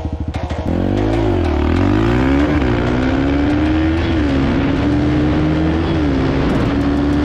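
Yamaha TT-R125 dirt bike's single-cylinder four-stroke engine accelerating hard from the launch and shifting up through the gears. The pitch climbs, then drops at each upshift, three times, about two and a half, four and six seconds in.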